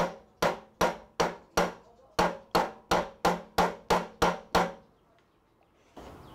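Mallet striking a wooden block held against the underside of a drill press chuck, thirteen sharp knocks at a steady two to three a second that then stop. This is the new chuck, its jaws fully retracted, being driven up onto the spindle's taper to seat it.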